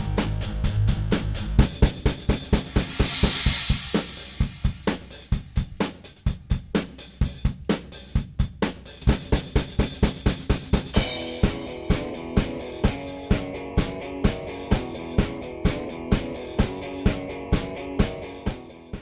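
Rock instrumental background music with a steady drum kit beat of bass drum, snare and hi-hat; it fades out near the end.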